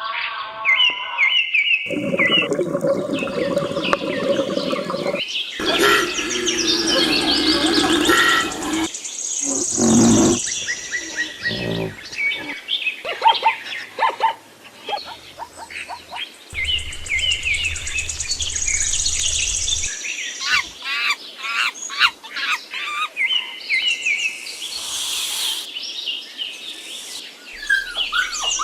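A string of short animal-sound clips spliced back to back, switching abruptly every few seconds, with bird chirps and tweets the most prominent.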